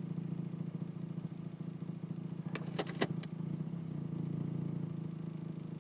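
2007 Toyota Tacoma PreRunner idling in gear with a steady low vibration drone, with a few quick clicks about halfway through. It is the noise that comes and goes with the gear selected; a new exhaust manifold gasket did not cure it, and someone suggested a transmission mount.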